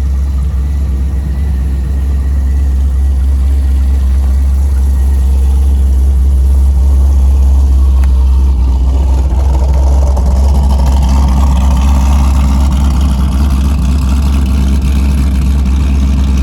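Cammed V8 of a VE Holden Commodore SSV running with a deep, steady rumble, growing louder and harsher from about a third of the way in.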